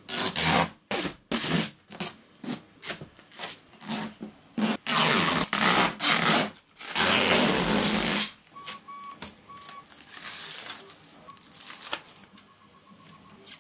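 Clear protective plastic film being peeled and pulled off a 3D printer's glass door and panels, crackling and rustling in a quick run of tugs. It goes quieter and sparser after about eight seconds.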